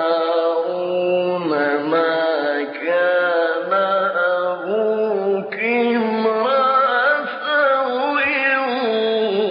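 A man reciting the Quran in a slow, melodic chant (mujawwad style), one voice holding long notes that bend up and down. A new phrase begins about five and a half seconds in.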